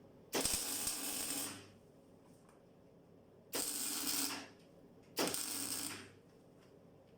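Electric arc welding: three short tack welds on thin steel strip, each a crackling arc that starts abruptly and burns for about a second or less, with a faint hum from the welder during each.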